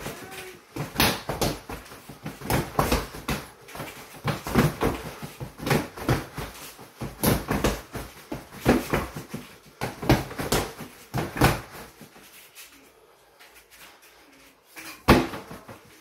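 Punches landing on a freestanding mannequin-torso punching bag, thudding in quick flurries for about twelve seconds. Then a quieter stretch, and one loud strike about a second before the end.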